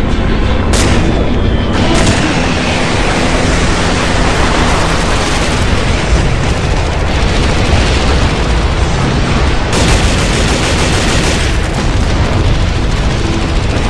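Explosions from a live-fire bombardment: a dense, continuous rumble with sharp cracks about one and two seconds in.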